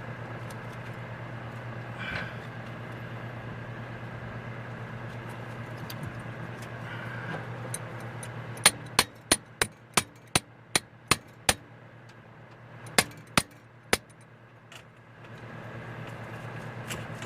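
Sharp metal taps on a carburetor that is being worked apart: a run of about nine evenly spaced taps, about three a second, then three more, over a steady low hum. The taps are an effort to free the stuck top cover, which seems caught on a screw.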